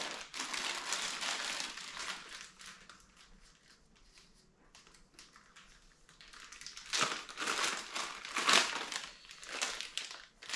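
Clear plastic parts bags crinkling as they are handled, in bursts during the first two seconds and again from about seven seconds in, with a quieter stretch between.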